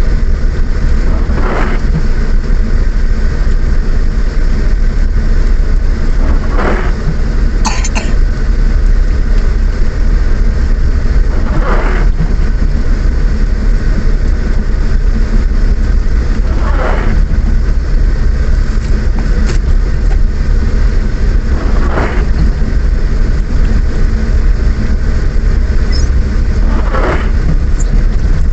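Car driving in the rain, heard from inside the cabin: a steady, loud rumble of engine, tyres and rain, with a windscreen wiper sweep swishing about every five seconds.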